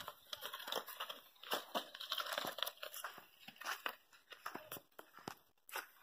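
Irregular soft crunching and scraping of ox hooves and a wooden plough working through dry, tilled soil, fading slightly toward the end.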